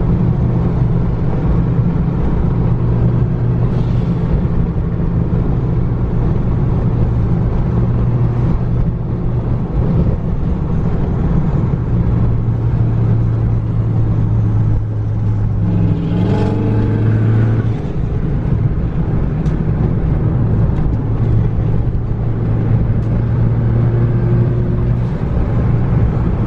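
Ford Focus ST's turbocharged four-cylinder engine and road noise at a steady freeway cruise: a constant low drone. A brief rising tone comes through about two-thirds of the way in.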